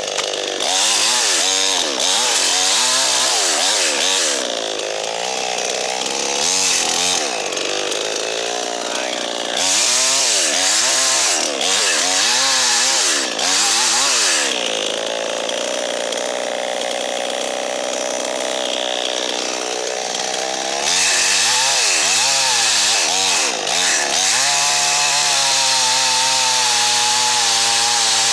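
Gas chainsaw running and revving up and down over and over, with long stretches held at full throttle, as when cutting through dead ash wood.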